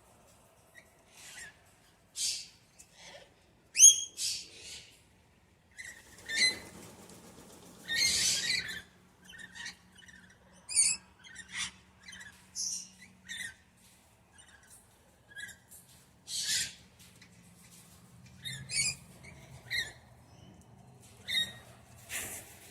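Wild parrots calling: a scattered series of short, sharp chirps and squawks, some with a clear pitch and some harsher, with the loudest about four seconds in.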